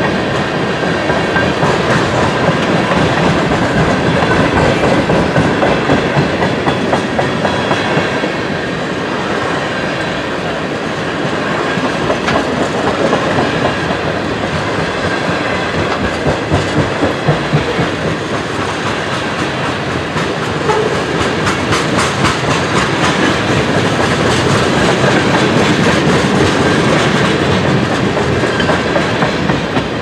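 Tank cars of a long, heavy freight train rolling slowly past. Steel wheels rumble steadily on the rail, with runs of rhythmic clickety-clack as the trucks pass over rail joints.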